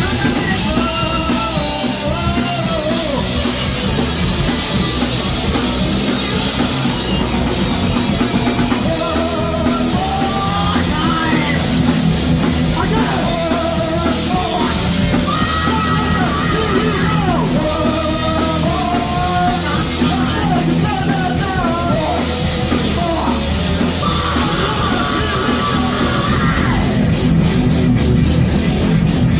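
Thrash metal band playing live: distorted electric guitars, bass and drums under a yelled lead vocal. Near the end the vocal stops and the guitars carry on.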